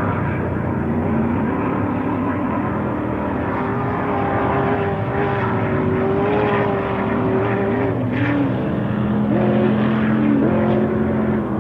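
Class 1 off-road race buggy engine running at speed: a steady loud drone whose pitch dips and climbs again several times in the second half as the throttle changes.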